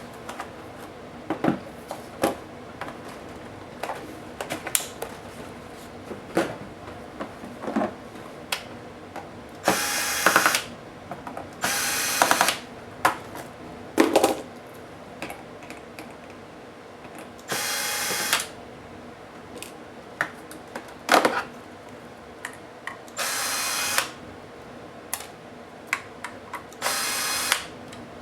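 Small electric screwdriver running in five short bursts of about a second each, backing out laptop case screws. Light clicks and taps of small parts come in between.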